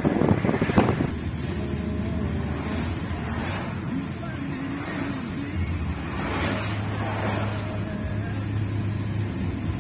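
Wind buffeting the microphone for about a second, then the steady hum of a car's engine and tyre noise heard from inside the cabin while driving.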